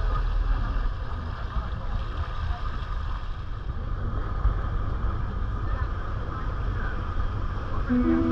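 Dive boat under way: its engine running steadily, with wind on the microphone and the wake rushing along the hull. Music comes in near the end.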